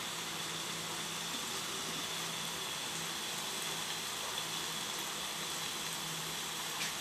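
Beef rendang simmering in a pot of coconut milk and spice paste, giving a steady, even hiss of cooking.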